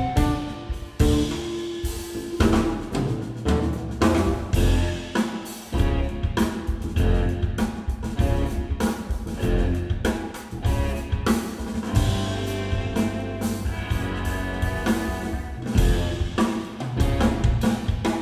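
Live instrumental groove from an electric guitar, bass guitar and drum kit trio, the drums keeping a steady beat under the bass line and guitar.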